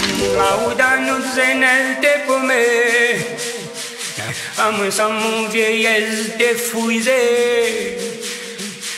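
Dance music mixed on a DJ controller, in a stripped-back section with the kick drum and bass gone: a wavering sung vocal line over a shaker rhythm.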